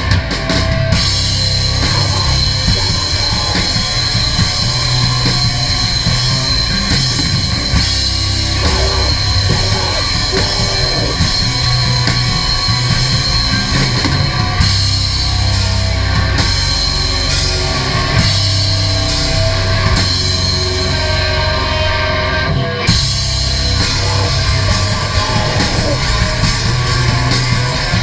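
Crust punk band playing live: distorted electric guitar, bass and a pounding drum kit, loud and dense, with a brief break about 23 seconds in.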